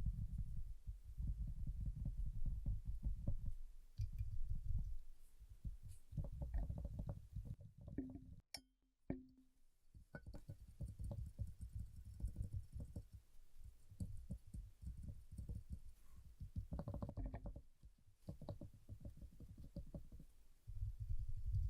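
Rapid fingertip tapping on a surface close to the microphone, dull low thuds in quick runs broken by short pauses.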